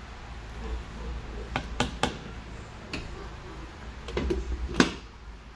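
A ladle knocking a few times against a cooking pot of soup, then a glass pot lid clinking as it is set on the pot, the loudest clink near the end.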